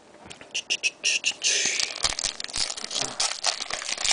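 Foil trading-card pack and cards being handled: irregular crinkling and rustling with many small crackles.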